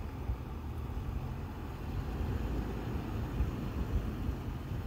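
2010 Land Rover LR4 driving, a low, uneven rumble of engine and running gear.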